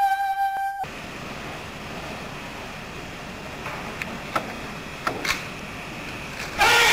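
A held flute note that cuts off abruptly under a second in, leaving the hiss of an old tape recording with a few faint knocks. Near the end there is a short, loud burst.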